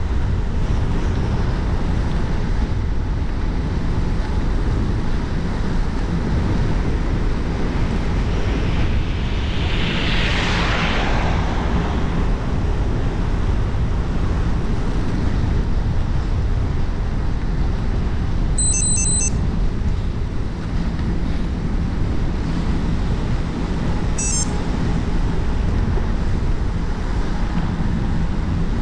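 Steady wind rush on the camera microphone of a moving bicycle, with a dense low rumble. About a third of the way in, a broad hiss swells and fades again, like a vehicle going past. About two-thirds of the way in there is a short run of high electronic beeps, and one more brief beep a few seconds later.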